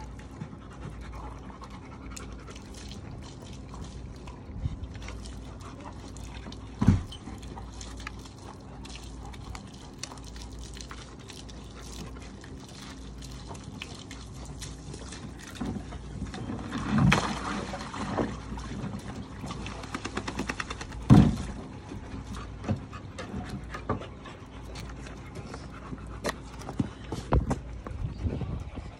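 A dog panting, broken by a few loud thumps and knocks, the loudest about two-thirds of the way through.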